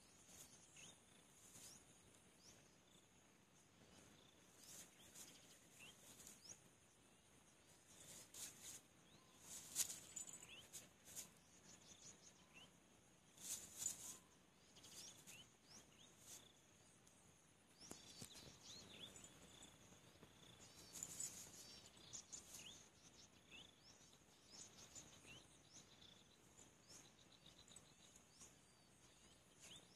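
Faint outdoor ambience: a steady high buzz of insects, scattered short bird chirps, and a few brief rustles, the loudest about ten and thirteen seconds in.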